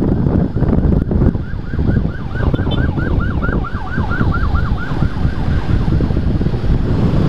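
An emergency-vehicle siren in a fast yelp, its pitch sweeping down over and over about four times a second, rising out of the rumble of riding and then fading near the end, over the motorcycle's engine and wind buffeting on the helmet camera's microphone.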